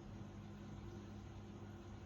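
Aquarium pump humming steadily, with a faint even hiss over it.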